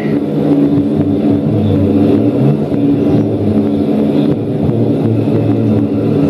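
Live noise-music drone from electronic gear: a loud, dense, steady low rumble with sustained low tones and a grainy texture, unbroken throughout.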